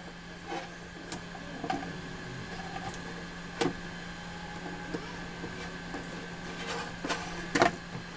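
Scattered small clicks and taps from computer parts being handled and fitted, about half a dozen, the loudest two near the end, over a steady low hum.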